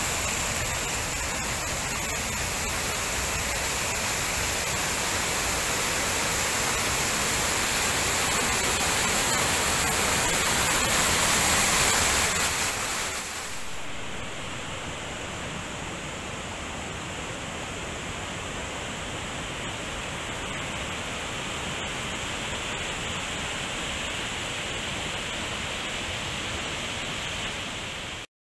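Steady rush of a small stream tumbling over rocks, loud at first. About halfway through it turns softer and duller and stays steady.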